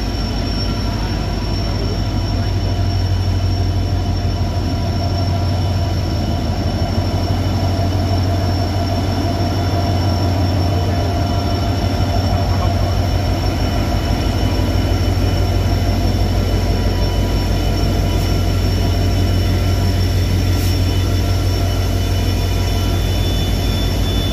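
WDP4D diesel locomotive's EMD two-stroke engine running with a steady low throb, over a thin steady high whine, as the locomotive creeps past.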